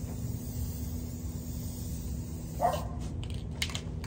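A single short animal call like a dog's bark about two and a half seconds in, over a steady low hum, followed near the end by a quick run of short hissing spurts from a hand spray bottle of white vinegar being squirted onto a bare steel gas tank.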